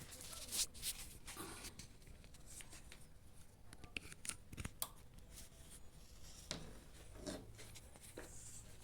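Scattered light clicks, knocks and rustles of hands handling the microwave's wiring and mains plug, over a faint steady low hum.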